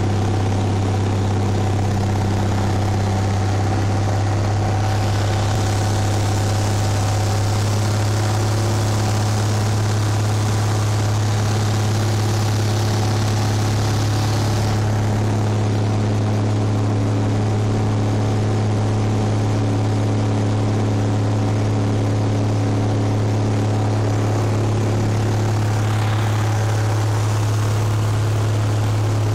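Cessna 172's piston engine and propeller droning steadily in flight, heard from inside the cabin. A brighter hiss of air noise rises over it from about five to fifteen seconds in.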